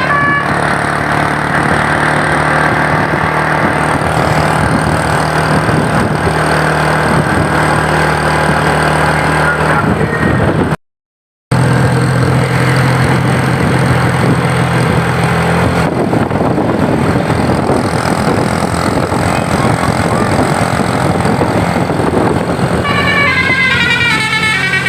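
Steady drone and road noise of a moving bus, broken once by a brief gap about halfway through. Near the end the bus's Basuri telolet horn starts up, playing its stepped multi-note tune.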